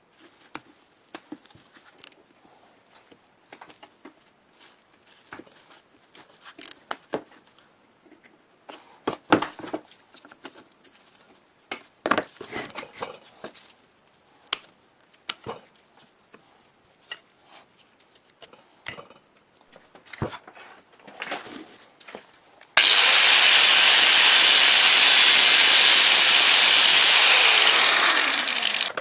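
Scattered light clicks, taps and scrapes as electric motor parts are handled, then a loud, steady hissing noise from a workshop tool working on a part. The hiss starts about two-thirds of the way in, lasts about six seconds and cuts off.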